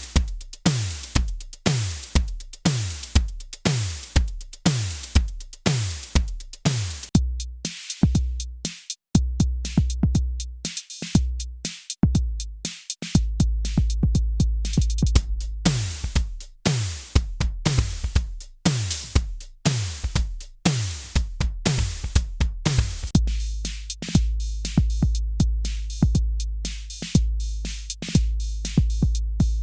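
Electronic drum machine beat: kick, snare and hi-hat pattern. In the first part the kicks drop in pitch with each hit. There is a short break about 9 seconds in, and from about 13 seconds in the kicks ring on as long, sustained low bass notes.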